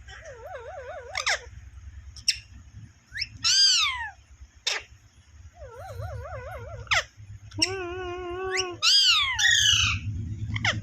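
Pet parrot calling and whistling. Sharp falling squawks are mixed with two warbling, wavering whistles and a held whistled note about eight seconds in, and a loud burst of squawks follows near the end.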